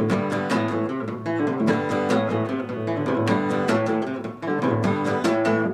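Guitar played with rapid picked notes over a sustained low note, stopping abruptly at the final note.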